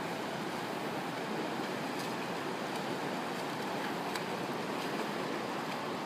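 Steady rush of river water pouring over a small waterfall into a pool, with faint splashes from a swimmer's strokes several times from about two seconds in.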